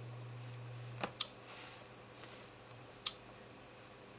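Two short, sharp clicks, about a second and three seconds in, as a finger taps the Pipo S1 tablet's touchscreen. A low hum stops with a faint click about a second in.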